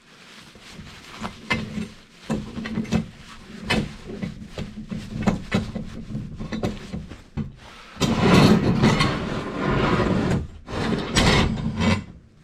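Short clicks and knocks of metal plumbing parts being handled. About eight seconds in, roughly four seconds of hard rubbing follows: a copper pipe end or brass fitting being scrubbed clean before flux goes on.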